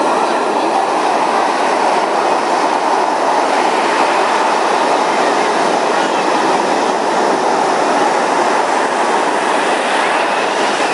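Surf breaking on a sandy beach: a steady, loud rush of waves and foam.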